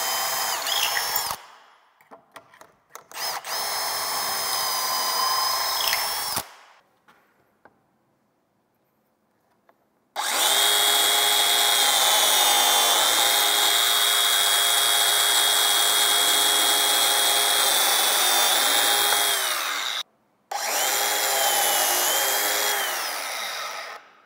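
A Milwaukee Fuel cordless drill running in two short steady bursts, boring pocket holes through a pocket-hole jig into a cedar rail cap. After a pause of a few seconds, a biscuit joiner's motor runs with a steady whine for about ten seconds while it cuts biscuit slots in the butt joint. It stops briefly and then runs again for a few seconds near the end.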